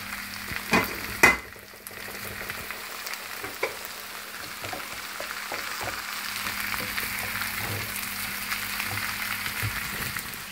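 Blanched dandelion leaves frying in oil with onion and garlic: a steady sizzle, stirred with a wooden spatula that scrapes and ticks against the pan. Two sharp knocks about a second in are the loudest sounds.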